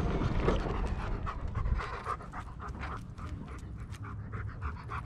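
German Shepherd panting rapidly close to the microphone, short breaths about three or four a second. A low rumble fades out in the first two seconds.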